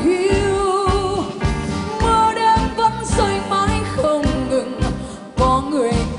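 A woman singing a slow Vietnamese ballad into a microphone with band accompaniment and a steady bass-and-drum beat. She holds a long note with vibrato for about a second at the start, then moves through shorter phrases.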